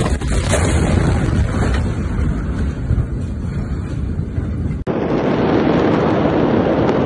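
Steady roar of rushing air and low rumble buffeting a phone's microphone just after the blast wave of the Beirut port explosion has swept over it. An abrupt cut about five seconds in switches to a steadier, duller rushing noise from another phone filming the burning port.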